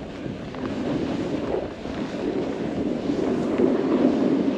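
Wind rushing over the microphone of a snowboarder riding downhill, mixed with the hiss of the board sliding through snow, growing gradually louder.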